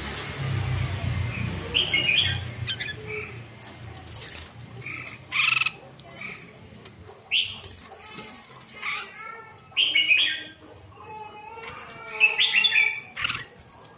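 Red-whiskered bulbul of the Hóc Môn song type singing short, loud phrases of whistled notes and chatter, a second or two apart, the loudest near the end. Wings flutter as it flies onto a hand.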